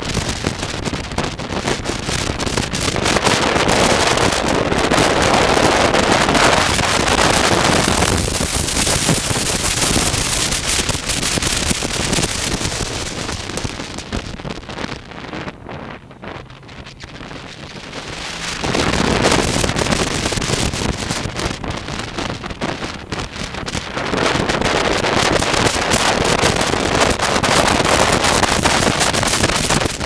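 Wind rushing over a helmet-mounted camera's microphone on a moving motorcycle, with road and engine noise underneath. It eases off for a few seconds around the middle as the bike slows for a tight hairpin bend, then builds again as speed picks up.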